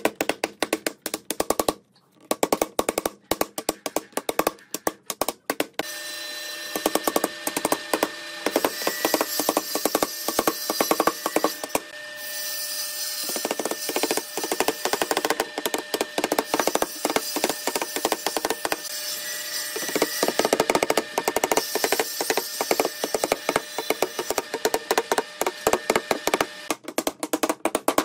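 Wooden mallet tapping notched wooden strips down into each other's slots to knit a lattice panel together: a quick run of sharp wooden knocks, several a second. A steady background noise with a thin high whine comes in about six seconds in and stops near the end.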